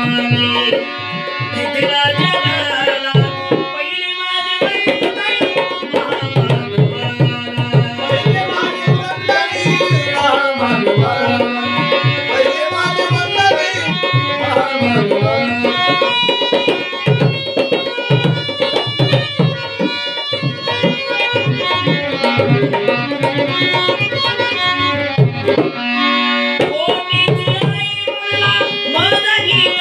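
Instrumental music with tabla drumming a steady beat under a melody instrument, with brief pauses about four seconds in and near the end.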